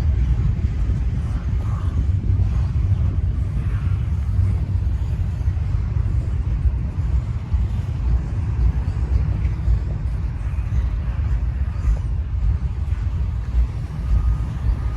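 Cars of a Norfolk Southern intermodal freight train rolling past on the rails, a steady low rumble.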